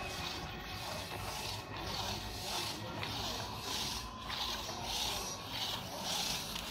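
Two-man crosscut hand saw cutting through a tree log: a steady rhythm of rasping back-and-forth strokes.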